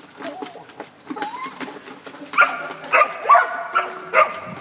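Dogs playing: a short whining cry about a second in, then a quick run of four sharp barks in the second half.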